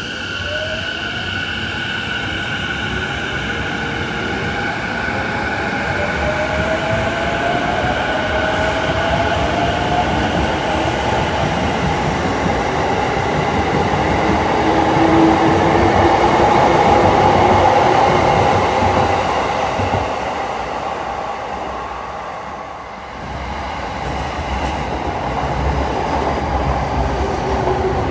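JR Keiyo Line electric commuter train accelerating, its traction motors whining upward in pitch over the first ten seconds while the running noise of wheels on rail builds to a peak in the middle. The noise eases a few seconds later, then rises again near the end as a train moves close alongside.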